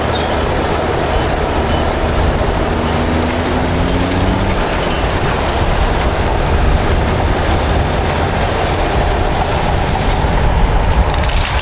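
Caterpillar bulldozers working under load: heavy diesel engines running hard with steady rumble and metallic track clatter. An engine's pitch climbs over the first few seconds, then blends into the dense machine noise.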